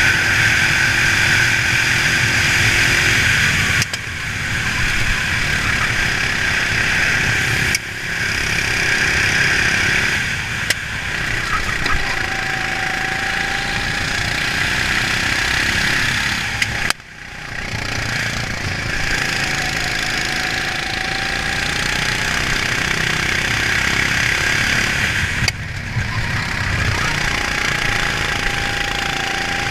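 Racing kart engine heard from on board, running hard, with its sound dropping sharply and briefly four times as the throttle is lifted for corners, the deepest drop about halfway through.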